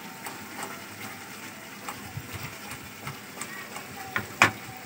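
Thick fig sweet cooking in a pan: a faint steady hiss with scattered small pops, and a sharper click about four seconds in.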